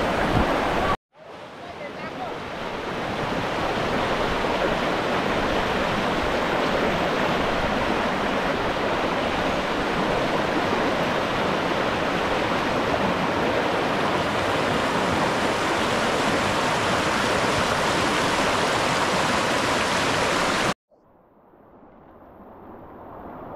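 Rushing water of a stream swollen with floodwater, a steady rush. It cuts out abruptly about a second in and again near the end, each time coming back quieter and swelling up.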